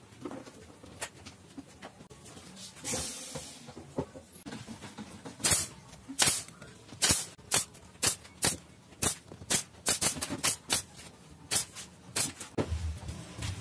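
Pneumatic nail gun firing a quick run of sharp shots, several a second, driving nails into a plywood edging strip. The shots start about halfway in and go on for around six seconds.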